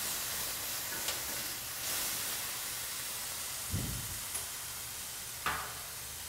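Bacon, onion and dried mushrooms frying with a steady sizzle in a stainless steel frying pan on a gas burner, stirred with a spatula while the cognac added to the pan cooks off. A few soft knocks sound, the sharpest about five and a half seconds in.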